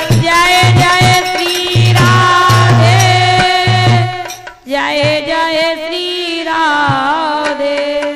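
Devotional naam dhun: a voice chanting a wavering, melodic line over sustained accompaniment, with regular low drum strokes. About halfway through the music dips sharply, then the chanting resumes with the drum much fainter.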